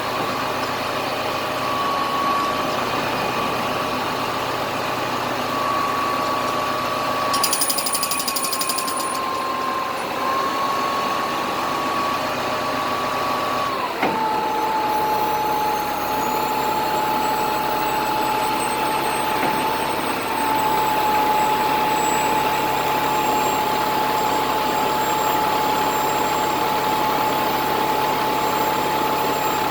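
Crane's engine running steadily with a high whine over it. About halfway through there is a sharp knock, after which the whine settles lower in pitch.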